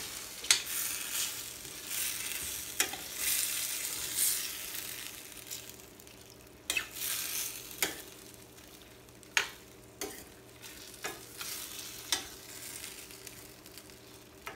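Metal spoon stirring shrimp in a thin red chile sauce in a hot stainless steel skillet. The pan sizzles loudest in the first few seconds, then quieter, with sharp clinks of the spoon against the pan every second or two.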